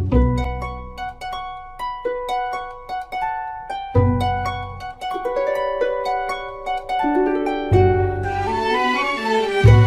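Instrumental background music: quick plucked, harp-like string notes over held string tones and a low bass.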